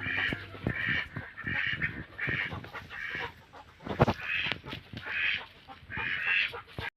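Rhode Island Red chickens calling over and over, a short call about every three quarters of a second, with scattered clicks and a sharp knock about four seconds in.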